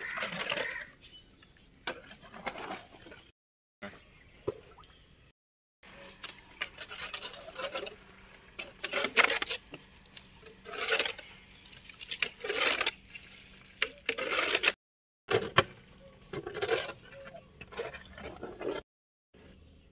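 A water buffalo drinking from a plastic tub, with repeated slurps and splashes of water. The sound drops to dead silence four times for about half a second each.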